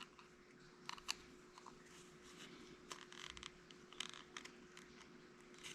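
Faint, scattered small clicks and light scraping from the plastic parts and wire of a Genie Intellicode garage door keypad being handled and fitted back together, over a faint steady hum.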